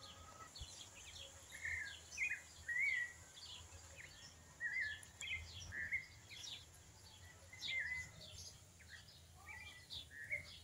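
Birds chirping: many short calls, about one or two a second, over a faint low steady hum.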